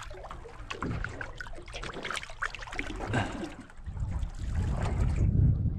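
Water splashing and trickling at the side of a boat as a golden trevally is let go back into the sea. A low rumble builds over the last two seconds.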